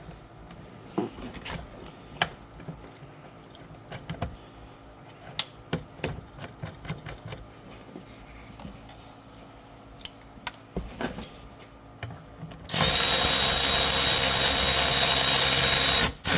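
Scattered clicks and knocks of parts being handled, then a power drill runs the seat-belt anchor bolt in for about three seconds, loud and steady with a high whine, and stops abruptly.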